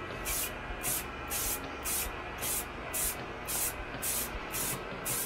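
Aerosol spray can of Rust-Oleum Ultra Cover 2X matte clear coat sprayed in short bursts, about two a second, laying on a light clear coat.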